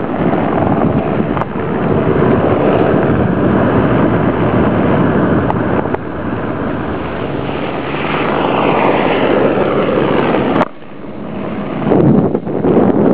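Wind buffeting the camera's microphone, a loud, steady rush that drops away suddenly a couple of seconds before the end and then returns in gusts.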